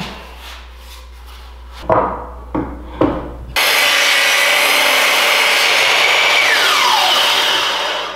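A few wooden knocks as the newel post is set against the fence, then a Bosch sliding miter saw starts suddenly and runs loudly while cutting the wooden post. Near the end a tone falls in pitch and the sound fades out.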